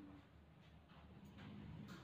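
Near silence: faint room hum with a few soft clicks.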